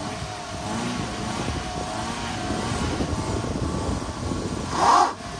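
Toyota Corolla's engine revving hard and steadily as the car strains on a rough rocky slope, with a short, louder burst near the end.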